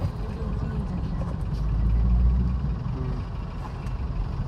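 Car on the move: low, steady engine and road rumble that swells louder for about a second around the middle.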